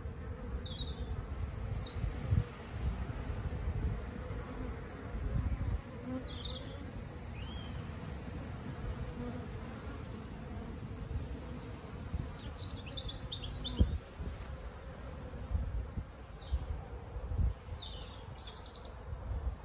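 Honeybees buzzing at a busy hive entrance, a steady hum of many bees flying in and out, with short high chirps now and then.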